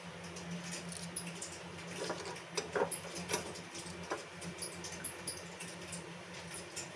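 Light clicks and scrapes of steel tongs against a gas stove's burner grate as roasted corn cobs are picked up and set on a plate, most of them in the middle of the stretch, over a low steady hum.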